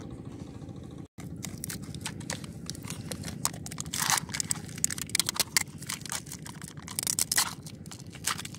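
Foil lids being peeled and torn off small plastic snack cups, with crinkling foil and crackling plastic in irregular bursts; the loudest rips come about four seconds in and again about seven seconds in.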